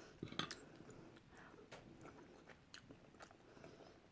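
Quiet chewing of a mouthful of food, faint irregular soft clicks from the mouth, slightly louder in the first second.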